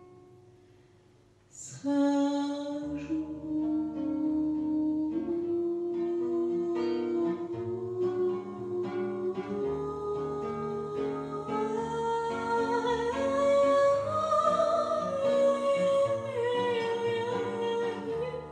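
A woman sings a Russian-language song into a microphone over instrumental accompaniment. After a soft, fading moment, her voice comes in strongly about a second and a half in, and the melody climbs steadily higher, peaking near the end.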